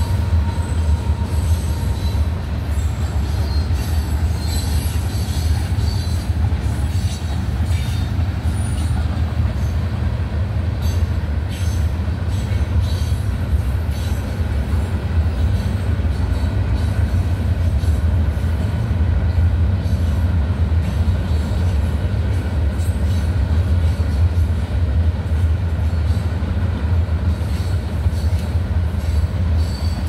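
A Union Pacific manifest freight train's cars rolling past in a steady low rumble, with faint high wheel squeal in the first several seconds.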